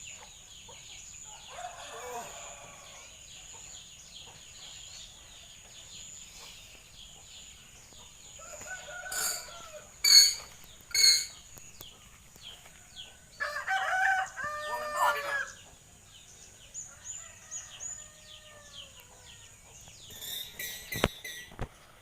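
A hill myna calling: scattered sharp whistles and squawks, the two loudest about ten and eleven seconds in, and a longer run of calls around fourteen seconds that sounds like crowing. A steady high whine runs underneath.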